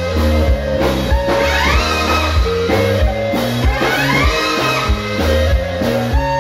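Brass band with trumpets, clarinets, tuba and drums playing live. Repeated rising runs in the high winds come about every second and a half, over a steady tuba bass and drum beat.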